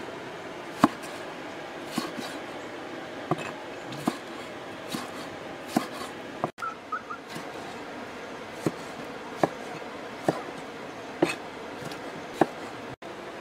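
Cleaver slicing tomatoes and green peppers and striking a wooden chopping block: sharp knocks about once a second over a steady background hiss.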